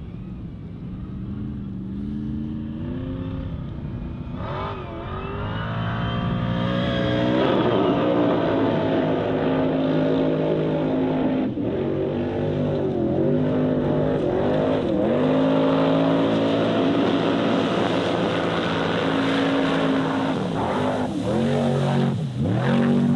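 Formula Offroad race buggy's engine revving hard as it drives across a river, getting louder over the first several seconds, then held at high revs with short drops in pitch as the throttle is lifted and reapplied.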